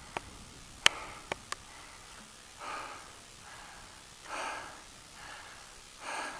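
A person breathing audibly, a stronger breath about every one and a half to two seconds with a weaker one between. A few sharp clicks come in the first second and a half.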